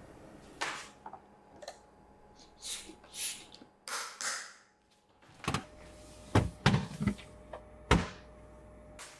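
Food storage containers of raw chicken being handled in the kitchen: soft rustles, then several sharp knocks and clicks of containers and lids being set down and latched, the loudest about eight seconds in. A faint steady hum starts about halfway through.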